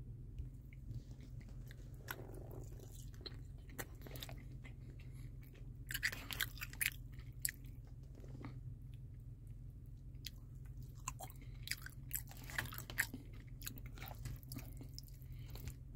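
A person chewing a mouthful of barbecue pulled pork close to the microphone, with scattered short mouth clicks, over a steady low hum.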